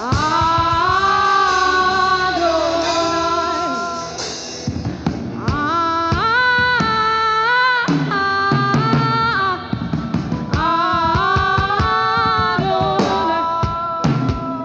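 Worship singing with a band: sustained sung notes over drums and guitar.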